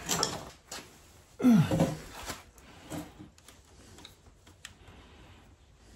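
Light metal clicks and scrapes as a pick works at the small C clip on a motorcycle throttle body linkage, with a sharp click now and then. There are a couple of brief low murmurs, one at the start and one about a second and a half in.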